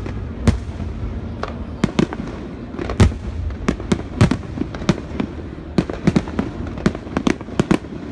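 Aerial fireworks shells bursting in quick, irregular succession: about twenty sharp bangs over a constant low rumble, coming faster in the second half.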